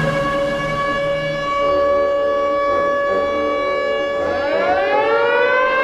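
Air-raid siren sounding on a steady, held pitch; about four seconds in a second siren starts winding up, its pitch rising beneath the first.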